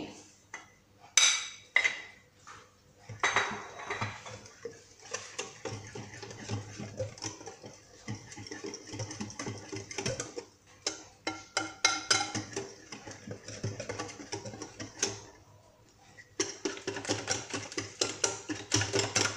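Wire whisk beating a thick semolina batter in a glass bowl: quick, irregular clicking and scraping of the wires against the glass. It stops briefly about three seconds before the end, then starts again louder.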